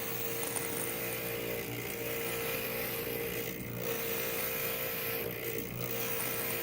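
Inland stained glass grinder running with a steady motor hum while a glass piece is ground against its bit, a rough grinding noise over the hum. The grinding noise drops away briefly twice, a little past the middle and again near the end.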